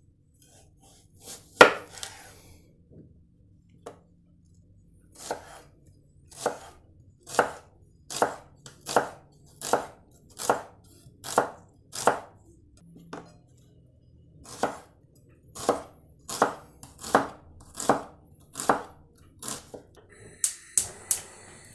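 Kitchen knife slicing an onion into thin half-moon slices on a bamboo cutting board: a long run of strokes, about one a second, each ending in a knock of the blade on the wood, with a short pause partway through. Near the end, clicks and a steady hiss as a gas hob burner is lit.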